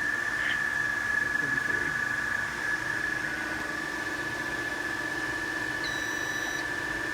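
Fire alarm control panel's buzzer sounding one steady high tone, with a single short higher beep about six seconds in, over a low steady hum.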